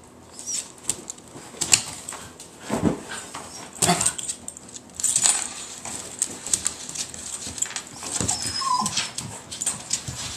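Patterdale terrier digging and pawing at the floor under a dresser, its claws scraping and clicking on the wood in quick irregular strokes. A short whine comes near the end.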